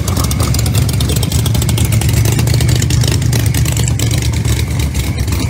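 ProCharger-supercharged V8 of a drag-racing Corvette running at a loud, steady idle as the car backs up toward the starting line.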